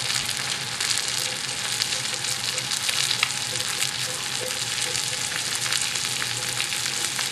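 Pistachio-crusted chicken breasts frying in hot oil in a skillet: a steady sizzling hiss with many fine crackles throughout.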